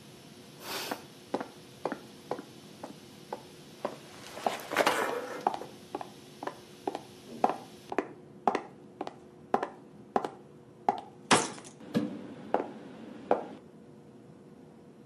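High-heeled shoes walking on a hard floor: a steady run of sharp clicks, about two steps a second, with a few louder knocks among them.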